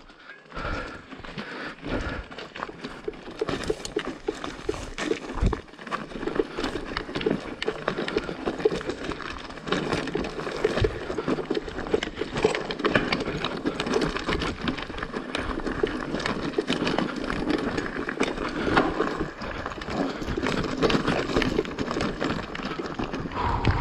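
Mountain bike riding down rough, wet, stony single track: tyres rolling over stones and roots, with a steady rattle from the bike and many small irregular knocks.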